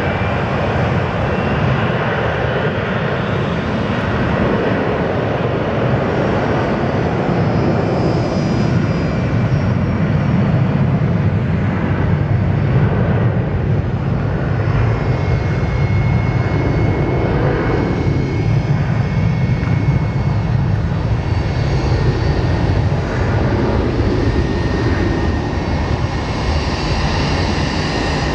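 Twin jet engines of a Boeing 757-300 airliner, a steady loud rumble as it lines up and starts its take-off roll, with a high steady whine coming in about halfway through.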